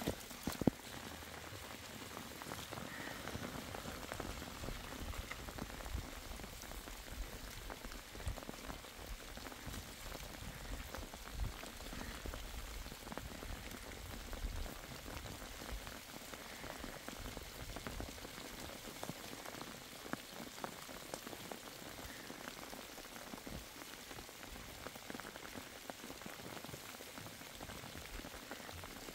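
Steady rain falling on open ground, an even hiss full of fine drop ticks. A single sharp knock sounds near the start.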